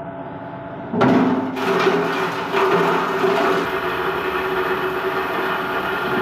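A steady ringing tone runs until about a second in, then gives way suddenly to a plastic scrap grinder crushing PET preforms: loud, continuous clattering and cracking of hard plastic in the cutting chamber over the machine's steady hum.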